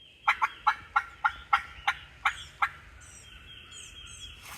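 Turkey calling: a run of about nine sharp yelps, roughly three a second, lasting a little over two seconds. Small birds chirp faintly behind it after the run stops.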